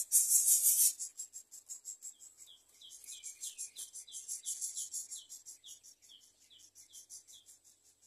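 A loud rustle of dry leaves in the first second, then a run of short, falling bird chirps, about two a second, over a fast, even, high-pitched pulsing like an insect's.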